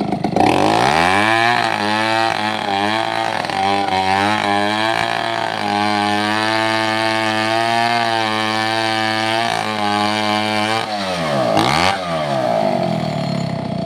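Two-stroke chainsaw engine revving up about a second in and running at high speed, its pitch wavering for a few seconds before holding steady. After about eleven seconds it drops back toward idle with a short blip of throttle.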